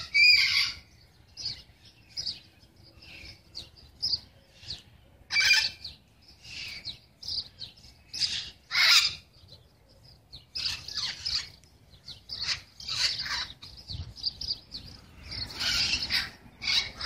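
A flock of parrots calling from a tree: many short calls at irregular intervals, some coming in quick bunches.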